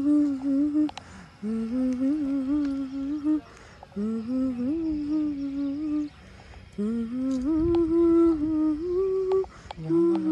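A single voice humming a slow tune unaccompanied, in four short phrases of about two seconds each with brief pauses between them.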